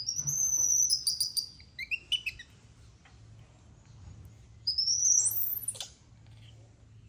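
Baby macaque giving high-pitched squealing calls in two bouts: a string of squeals in the first two seconds or so, then one rising-and-falling squeal about five seconds in.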